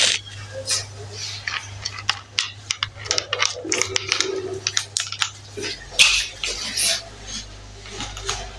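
Scattered light clicks and clatter from handling an angle grinder fitted with a sanding pad, over a steady low hum; the grinder is not running.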